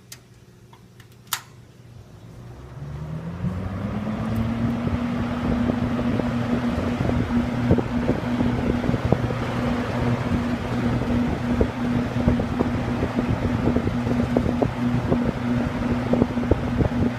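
Two late-1960s Hunter box fans switched on at high: two sharp clicks, then the motors spin up with a rising hum that levels off about four seconds in. They then run with a steady hum under a loud, gusty rush of air.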